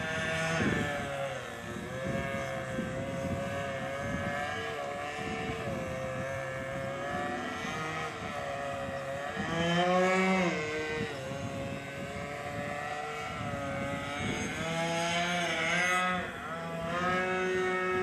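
Model aircraft two-stroke glow engine, an OS 55AX, running in a 3D aerobatic flight. Its pitch keeps rising and falling with throttle changes and passes, getting louder around the middle and again near the end.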